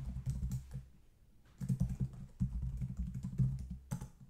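Typing on a computer keyboard: a quick run of keystrokes, a pause of about a second, then more rapid keystrokes.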